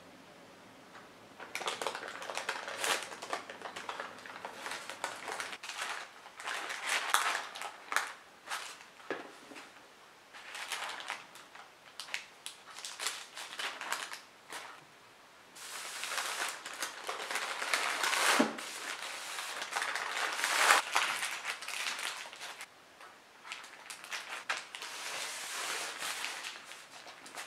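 Baking parchment crinkling and rustling in irregular bursts as a sponge roll cake is rolled up in it and the paper is pulled tight around the roll with a scraper. The crinkling is loudest in the second half.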